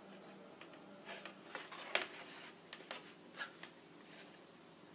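A cardboard cat-toy box scraped and tapped as a cat paws at a cat-teaser wand poked through its holes: a scatter of short, papery scratches and taps, the loudest about two seconds in, dying away in the last second.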